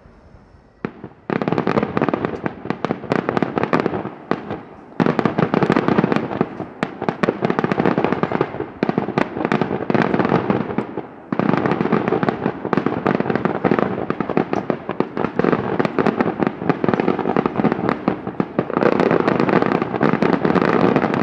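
Daylight fireworks display: dense, rapid strings of firecracker bangs that start about a second in and run on, with two brief pauses, near four and near eleven seconds.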